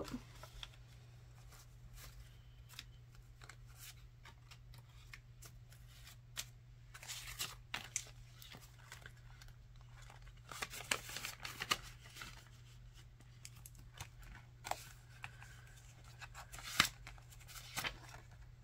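Paper banknotes and clear plastic binder pouches being handled: faint, scattered rustling and crinkling, with a low steady hum underneath.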